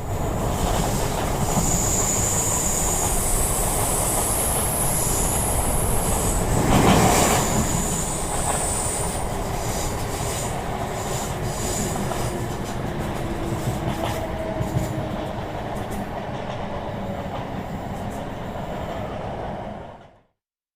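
A train running on rails: dense rumbling wheel noise with high-pitched wheel squeal through the first half. The sound swells loudest about seven seconds in, then slowly eases off before cutting off sharply just before the end.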